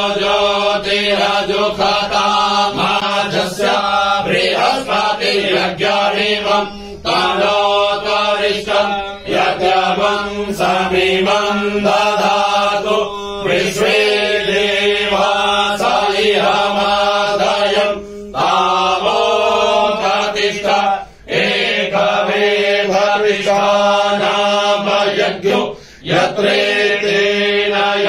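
Group of men chanting a Hindu mantra together in unison, loud and continuous, with a few brief breaks between phrases.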